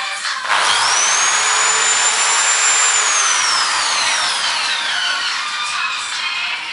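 Electric power drill boring into a smartphone's glass screen. About half a second in the motor speeds up with a quickly rising whine over a grinding hiss, holds steady for a couple of seconds, then slowly winds down.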